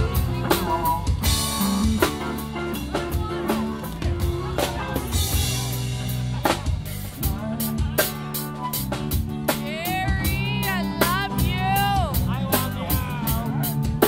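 A live band playing, with a driving drum-kit beat of snare, bass drum and cymbals under sustained pitched parts. A bending lead line comes in between about ten and twelve seconds in.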